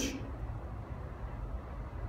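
Steady low background hum of room tone, with no distinct event in it; the tail of a spoken word fades out right at the start.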